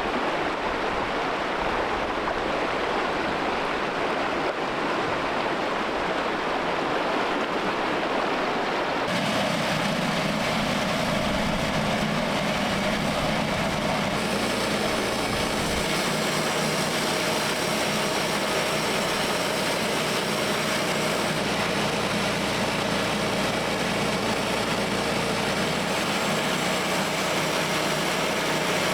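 Creek water rushing in high flow, which gives way about nine seconds in to a steady engine running at an even pitch, the engine of a portable sawmill.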